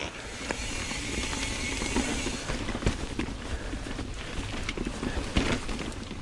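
Mountain bike rolling over rock slabs, the tyres scrubbing on stone and the bike rattling and knocking with many sharp clicks, over steady wind noise on the microphone.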